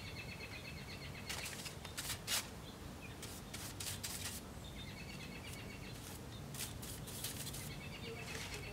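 Small birds chirping in short trilled phrases, with scattered sharp clicks and taps; the loudest tap comes a little over two seconds in.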